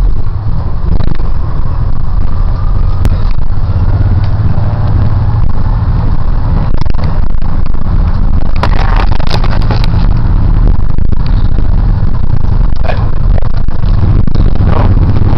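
School bus engine and road noise heard inside the moving bus: a loud, steady low rumble, with a faint whine that rises in pitch over the first few seconds.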